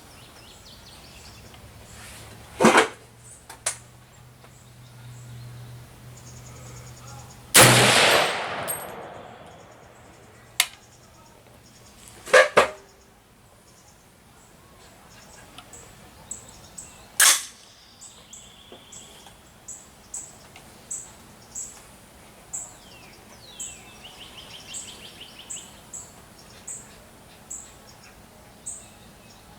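Four shots from an M1A (M14-pattern) semi-automatic rifle firing .308 Winchester 150-grain Super X ammunition, each a sharp crack with a short echo, about five seconds apart. Small birds chirp steadily in the second half.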